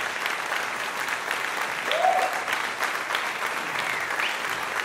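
Applause: many hands clapping steadily, with a short rising call over it about two seconds in.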